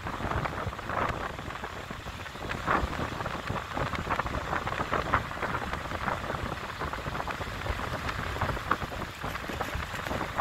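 Wind buffeting the microphone over the steady wash of small waves in shallow surf, with irregular splashing as dogs run through the water.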